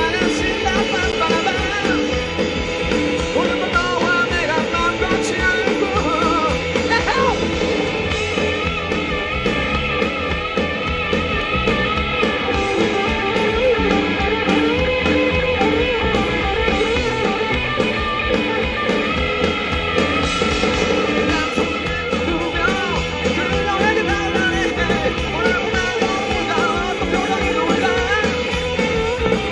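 Live rock band playing at full volume: electric guitars through Marshall amplifiers over a drum kit, with a steady rock beat.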